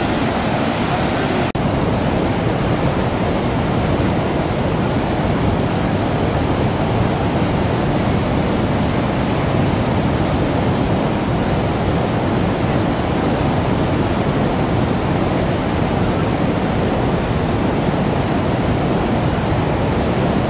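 Water gushing from a dam's open sluice gates and churning over the weir into the river: a loud, steady rush with no letup.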